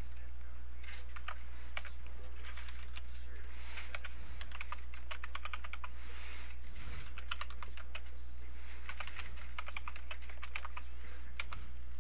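Computer keyboard typing in irregular bursts of keystrokes, over a steady low hum.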